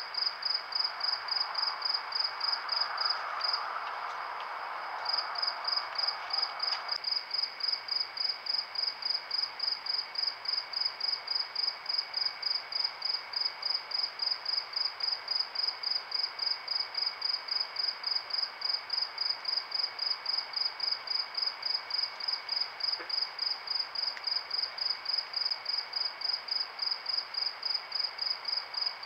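Cricket chirping steadily at a high pitch, about four chirps a second, with a short pause a few seconds in, over a fainter steady high tone. A soft hiss underneath cuts off abruptly about seven seconds in.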